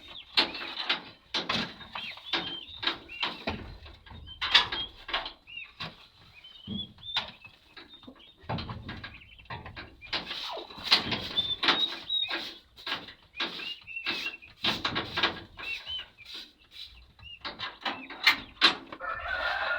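Young chicks peeping again and again in short chirps, over irregular scraping and knocking.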